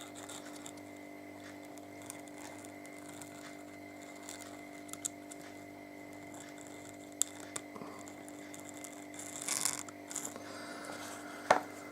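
Faint handling sounds of small parts being worked by hand: scattered light clicks and taps, a short rustle about nine and a half seconds in and a sharper click near the end, over a steady low electrical hum.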